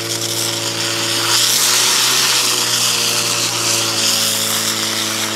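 Hiss of two fire-hose water jets spraying hard, louder from about a second in, over the steady drone of the fire-pump engine running at constant high speed.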